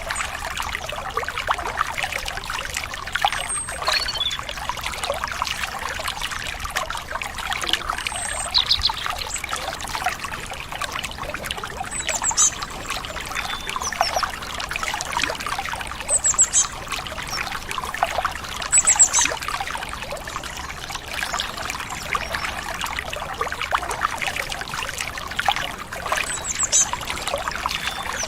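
Stream water trickling and splashing steadily, with short high bird chirps every few seconds.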